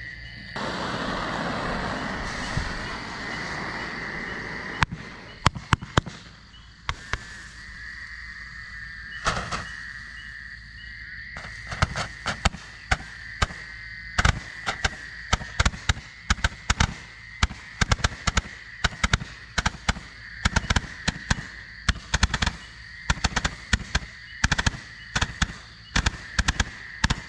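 A 228-shot Ballistic Barrage firework cake firing: a few seconds of hissing, then scattered sharp shots, and from about twelve seconds in a fast, steady barrage of bangs, several a second.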